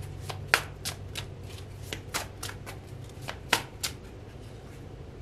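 A deck of oracle cards being shuffled by hand: a run of quick, irregular card snaps and flicks that stops about four seconds in, when a card is drawn.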